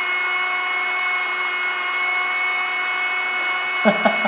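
Homemade hand-held hair dryer running steadily: a rush of air with a constant high motor whine. Near the end, a man laughs briefly twice.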